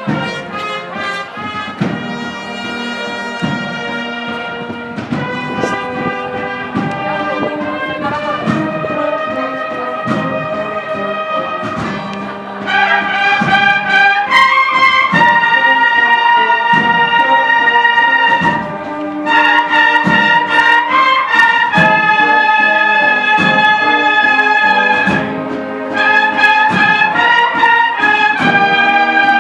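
Brass band playing a slow processional march, long held brass chords changing every second or two. It grows louder about twelve seconds in.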